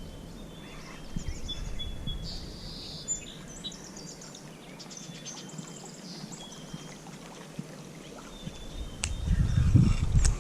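Small birds chirping and twittering in short, repeated calls. A low rumble grows louder near the end, with a sharp click just before it.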